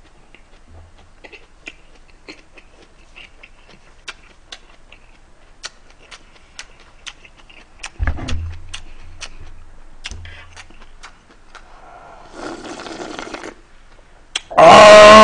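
Close-miked chewing of a lettuce-wrap bite of rice and pork, with many small wet clicks, and a low thump about eight seconds in. Near the end comes a brief noisy slurp of doenjang stew broth from the earthenware pot, followed by a loud drawn-out satisfied 'ahh'.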